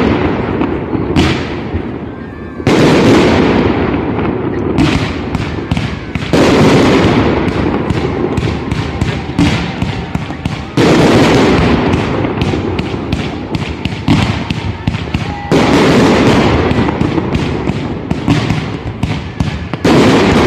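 Fireworks display: five big aerial bursts about four to five seconds apart, each a sudden loud bang that rumbles away slowly, with dense crackling throughout.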